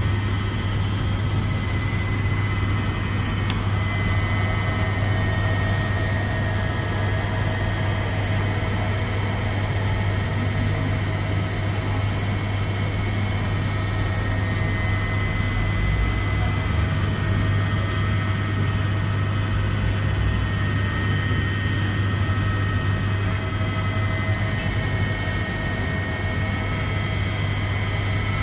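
Steady Airbus A320 jet engine and airflow noise, a constant low rumble with a few faint steady tones over it, unchanging throughout.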